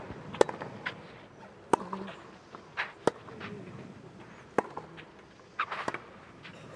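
Tennis rally on a clay court: five sharp racket strikes on the ball, about one every second and a half, with fainter knocks and scuffs between them.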